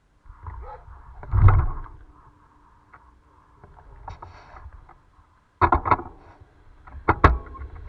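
Small stones being picked up from the roadside: scraping and clicking of pebbles, with a loud knock about a second and a half in and clusters of sharp clicks near six and seven seconds.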